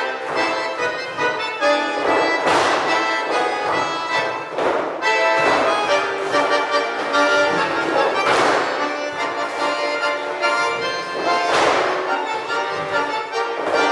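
Accordion playing a tune, with sustained chords throughout. Several noisy thumps land every few seconds.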